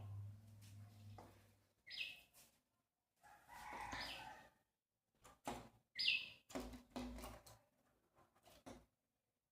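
A small bird chirping: a few short, high calls, with scattered soft taps and rustles between them.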